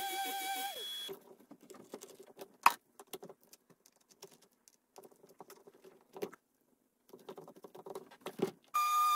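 Random orbital sander whining, then spinning down within the first second. Then scattered crackling, rustling and clicking as the hook-and-loop sanding disc is peeled off the pad and a new disc pressed on, with one sharp click near the middle. The sander starts up again with a steady whine near the end.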